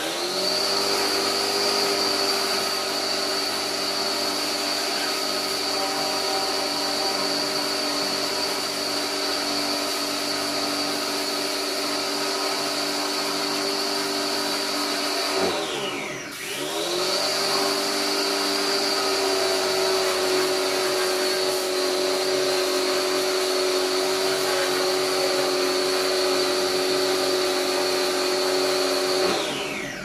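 Electric pressure washer running, its motor and pump held at a steady pitch under the hiss of the water jet. About halfway through the motor winds down and spins straight back up, and it winds down again near the end, as the spray gun trigger is released.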